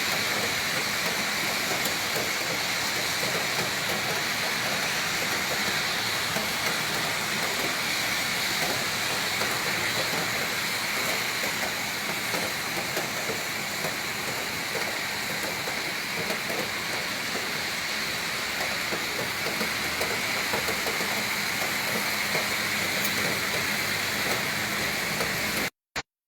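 Heavy rain pouring steadily in a windy storm, an even hiss of downpour that cuts off suddenly near the end.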